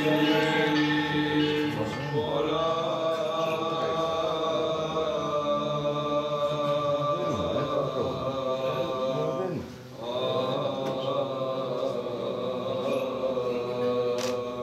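Byzantine chant sung in long held notes. It breaks off briefly about two-thirds of the way through, then resumes.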